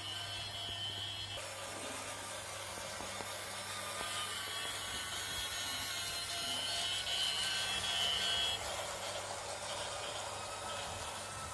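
Fenfa toy train set's locomotive motor whirring with a high whine and its wheels rattling along the plastic track. The sound grows louder until about 8 seconds in, then drops off abruptly.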